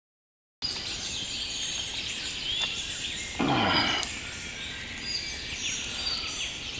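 Songbirds chirping and calling in woodland, many short high notes and glides. Partway through comes a brief, louder low sound that falls in pitch.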